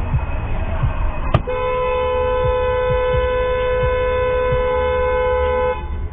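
Car horn held in one long steady blast of about four seconds, starting just after a sharp click about a second and a half in, over a low road rumble.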